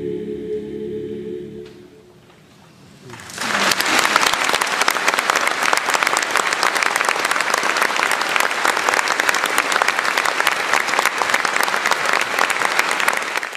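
Sustained music with held chords fades away over the first couple of seconds. About three seconds in, an audience breaks into steady applause that lasts about ten seconds and is cut off abruptly at the end.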